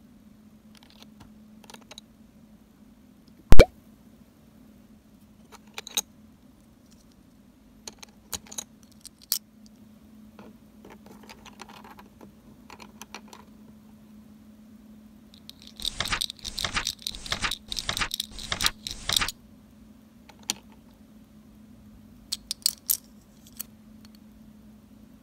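Small plastic toy kitchen pieces clicking and tapping as they are handled, with one sharp, loud click about three and a half seconds in. Later comes about three seconds of quick, repeated scraping strokes as a cucumber is sliced on a miniature plastic vegetable slicer, followed by a few light clicks.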